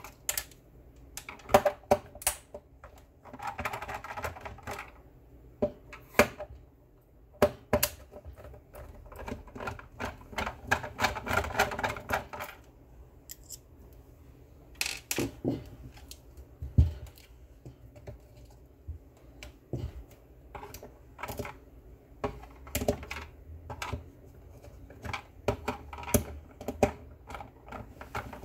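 Irregular clicks and knocks of a Monster Blaster Black speaker's plastic housing and parts being handled during disassembly. Two stretches of quick, dense rattling come about three to five seconds in and from about nine to twelve seconds in.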